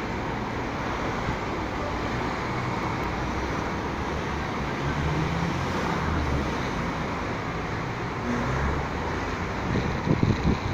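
Steady street traffic noise, an even hum of passing road vehicles, with a few low thumps close together near the end.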